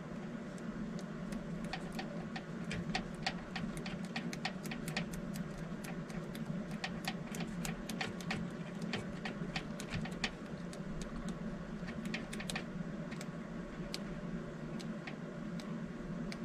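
A fingertip in a rubber finger cot rubbing thermal paste across the metal lid of a CPU: a fast, irregular run of small clicks and ticks over a steady low hum.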